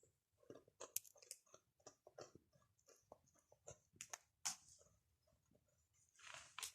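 A baby chewing and crunching a biscuit: quick, irregular little crunches and mouth clicks, with a short pause about five seconds in.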